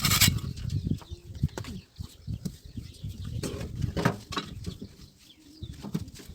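Bricks being handled and set in place around a backyard fire pit: scattered knocks and scrapes, with one louder scrape at the very start.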